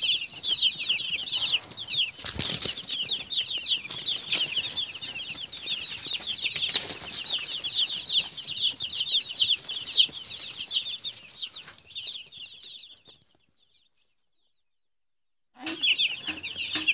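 A flock of young broiler chicks peeping nonstop, many short, high, falling chirps overlapping. The peeping fades out about three-quarters of the way through, stops for a couple of seconds, then starts again near the end.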